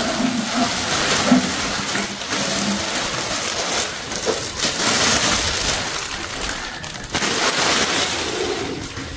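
Rustling and crackling of a cardboard box and its packing being handled as a loudspeaker is unpacked, with a few knocks along the way.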